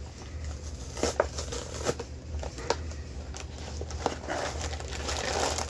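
Cardboard Lego set box being worked open by its top flaps: scattered light clicks and taps, then a rustling scrape building near the end, over a low steady hum.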